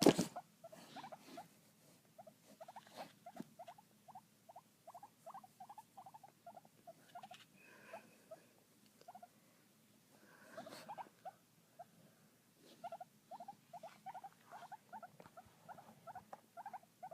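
Guinea pig making a long run of short, repeated squeaky calls, a few per second, with brief pauses. A single knock sounds at the very start.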